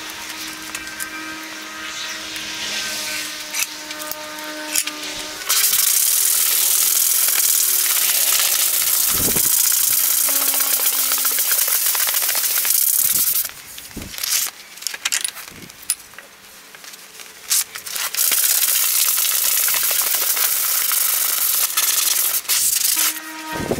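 Abrasive cloth strip pulled back and forth around a wooden ash axe handle, shoeshine-style sanding: a loud, hissing rasp in two long spells, with a few seconds of scattered scrapes between them. It begins softer and turns loud about five seconds in.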